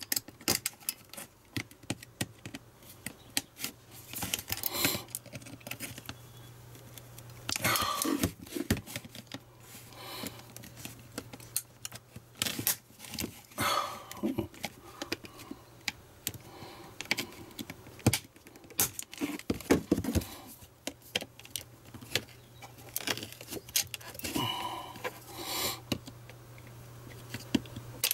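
Screwdriver prying at the snap-fit plastic casing of a Dyson vacuum battery pack: irregular scraping and sharp clicks of plastic on metal, in bursts several seconds apart, as the clip tabs are forced.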